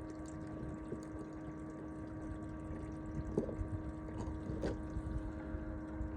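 Steady hum of a small motor aboard a fishing boat, holding several unchanging tones over a low rumble, with a few faint ticks.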